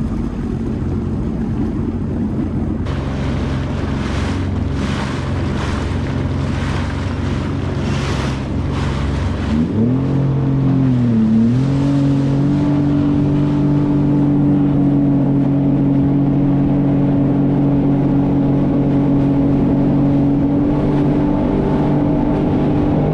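2020 Sea-Doo Fish Pro jet ski's three-cylinder four-stroke engine running under way, with rushing water surging about once a second for the first several seconds. About ten seconds in the engine pitch dips briefly, then climbs to a higher, louder steady note and holds as the craft speeds up to cruise.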